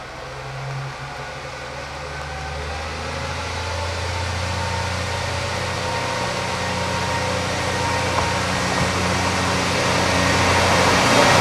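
Kiha 40 diesel railcar approaching, its engine running with a steady low note while the engine and running noise grow steadily louder.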